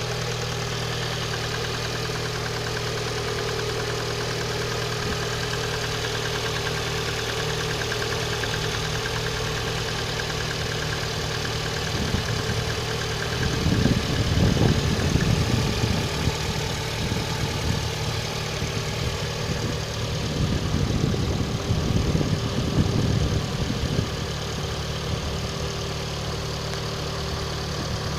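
VAZ-11194 1.4-litre 16-valve four-cylinder engine idling steadily with a knock in it. Twice it grows louder and rougher for a few seconds, about halfway through and again a few seconds later.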